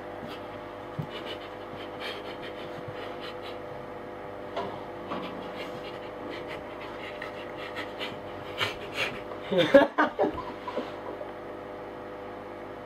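Steady electrical hum with faint knocks and rustling from a person moving on all fours across a carpeted floor. About nine seconds in, a person's voice makes a few short, loud non-verbal sounds.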